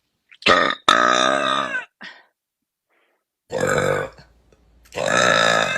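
A woman belching loudly, four times: a short belch, then a long drawn-out one, then two more, the last still going at the end.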